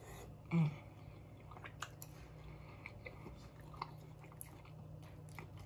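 Close-miked chewing of a soft mouthful of hamburger steak with gravy, with small wet mouth clicks and smacks. About half a second in comes a short, loud hummed "mm".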